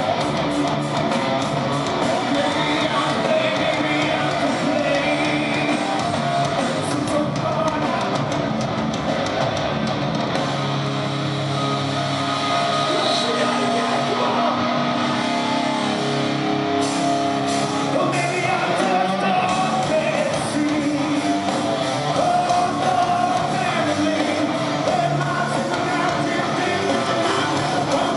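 Metal band playing live: distorted electric guitars, bass and drums with a singer's voice over them, loud and steady throughout.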